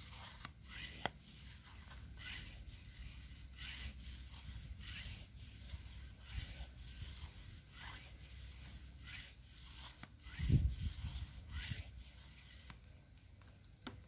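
A hand pump forcing air into a homemade smoke machine to push smoke into the intake for a vacuum-leak test. It makes a steady rhythm of short strokes of air noise, roughly three every two seconds, with one louder thump about two-thirds of the way through.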